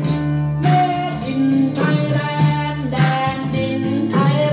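Recorded music played from a vinyl record on an AR turntable through a McIntosh valve preamp and amplifier, heard over JBL L300 loudspeakers in the room, with pitched notes and sharp percussion hits.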